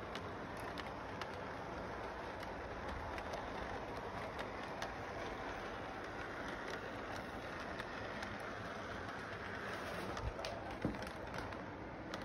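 Model electric train running on its track: a steady running rumble with irregular light clicks of the wheels over the rail joints, and one sharper knock about eleven seconds in.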